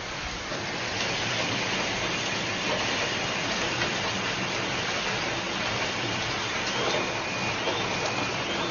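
Hailstorm: hailstones falling on the pavement, a steady dense patter with faint separate ticks.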